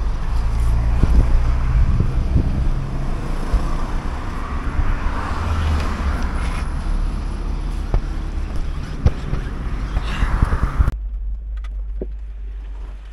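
Car engine running with road noise, its low hum stepping in pitch a few times; the sound cuts off abruptly about eleven seconds in, leaving a much quieter background.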